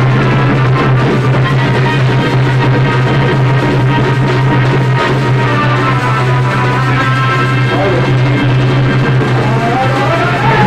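Loud, continuous music accompanying a Chhau dance, held over a steady low drone with melodic lines above it. Near the end the melody moves into gliding notes.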